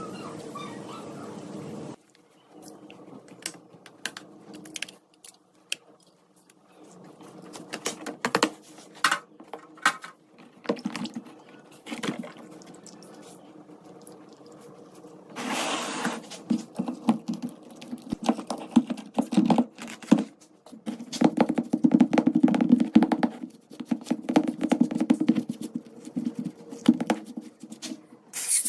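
Small metal parts of an old revolver being handled and worked on at a bench: scattered clicks and knocks, with stretches of scraping in the second half.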